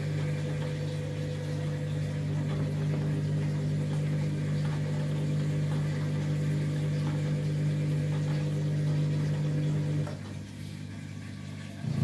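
Candy front-loading washing machine running steadily with a low hum during its rinse, its drum loaded past capacity. The hum cuts out about ten seconds in, leaving a quieter background.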